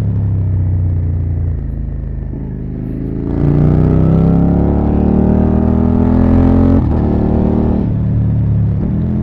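Suzuki SV650's V-twin engine through an SC Project oval titanium exhaust with the dB killer removed. It runs at a steady note, then pulls harder and louder from about three seconds in with its pitch climbing. Near seven seconds it drops away abruptly and settles back to a steady, lower note.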